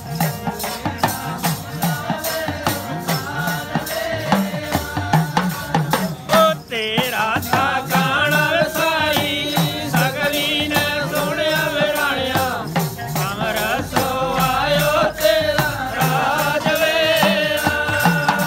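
Devotional folk music: a skin-bellied, long-necked bowed folk fiddle plays a wavering melody over a fast, steady rattling beat and a drum. The melody comes in strongly about seven seconds in.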